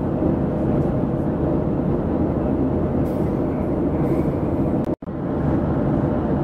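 Steady cabin drone of a Boeing 737 in flight, the low rush of engines and airflow heard from a window seat. About five seconds in, the sound breaks off for an instant at a cut in the recording, then resumes unchanged.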